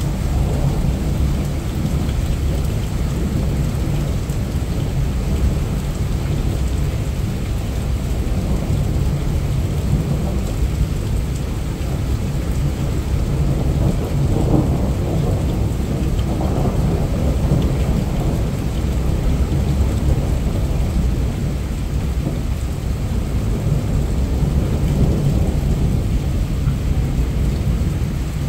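Heavy rain falling steadily, picked up by a mobile phone's microphone, with a constant low rumble under the hiss.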